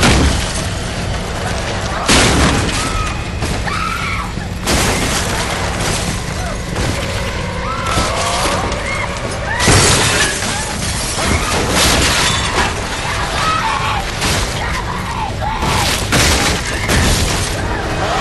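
Film sound effects of a violent break-in: half a dozen heavy blows and crashes of shattering window glass, spaced a few seconds apart, with a voice crying out between them over steady rain.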